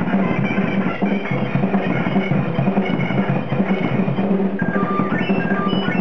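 Live band music: a drum kit played continuously, with keyboard notes over it.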